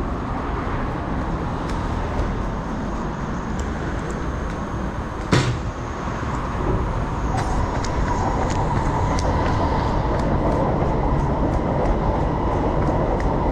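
Elevated MRT train running on the overhead track: a steady rumbling noise, with a whine that comes in about seven seconds in and holds to the end. A single sharp knock sounds about five seconds in.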